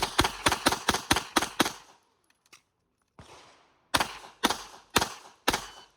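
9mm Glock 26L pistol firing: a fast string of about nine shots, a pause of about two seconds, then four more shots about half a second apart.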